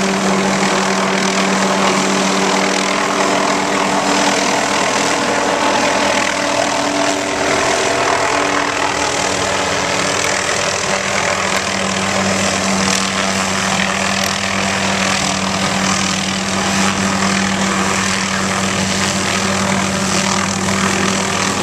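Tree-trimming helicopter running steadily: an even, loud engine and rotor drone with a constant hum.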